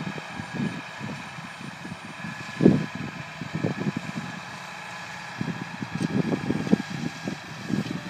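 Massey Ferguson tractor engine running steadily as it pulls a tillage implement across the field, heard under irregular gusts of wind buffeting the microphone.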